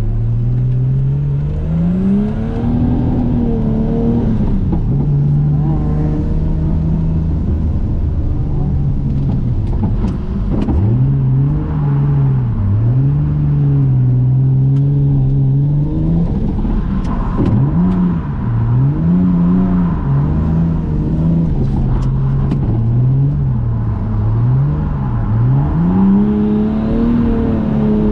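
Toyota JZX100 Mark II's engine heard from inside the cabin while drifting, its revs climbing and dropping over and over with the throttle, with a few sharp clicks along the way.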